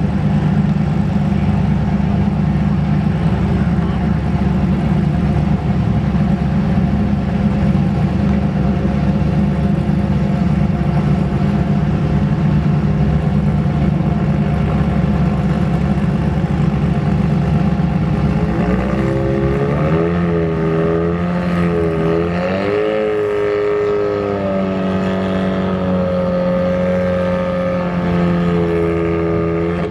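Twin-turbo small-block Chevy V8 drag car idling steadily. From about two-thirds in, a second engine's note rises and falls with light revs as another race car pulls up alongside.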